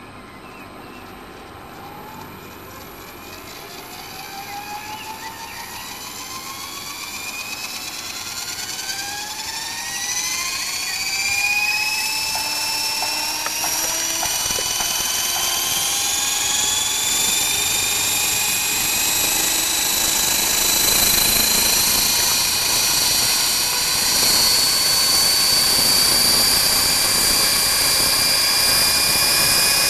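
Electric Align T-Rex 450 RC helicopter with a five-blade main rotor and four-blade tail rotor spooling up on the ground. The motor-and-gear whine and rotor sound rise steadily in pitch and loudness for about the first twenty seconds, then hold steady at full head speed.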